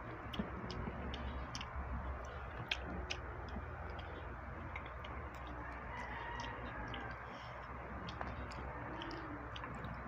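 Eating by hand: scattered small clicks and ticks as fingers pick at fried fish, crab and rice, over a steady low hum.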